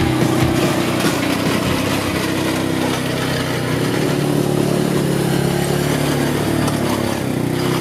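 ATV engine running steadily under load as it tows a driveway grader whose ripper teeth are breaking up a muddy gravel driveway, the engine note shifting slightly with the throttle.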